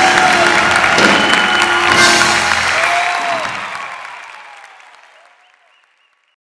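Audience applauding and cheering with whoops after a live band and singer's song, fading out to silence a little past halfway.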